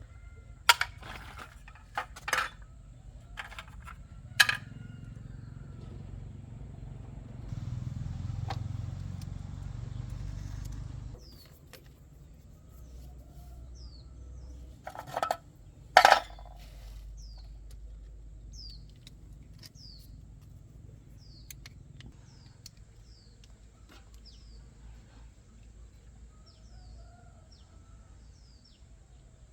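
Sharp knocks and clinks of hand tools at work on a motor tricycle, several in the first few seconds and a pair about halfway, with a few seconds of low rumbling between. Later a small bird chirps repeatedly in short, high, falling notes.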